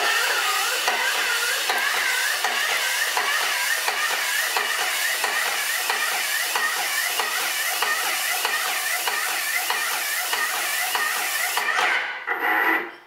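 Aspro 6000 airless putty sprayer spraying ready-mixed putty through a size 31 tip: a loud, steady hiss with a regular pulsing, which is the stable spray fan. It cuts off sharply near the end.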